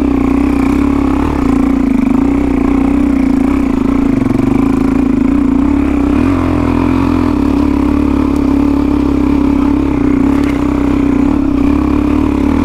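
Single-cylinder four-stroke trail bike engine running steadily at nearly constant revs.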